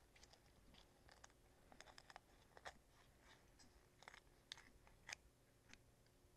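Faint, scattered clicks and crunches of a blade cutting through the backbone of a raw whole chicken, over near silence.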